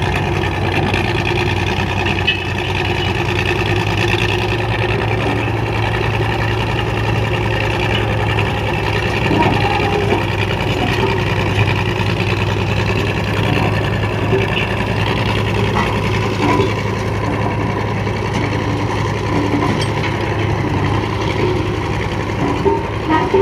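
Diesel engine of a JCB 3DX backhoe loader running steadily under load while it pushes a stuck road roller up a slope.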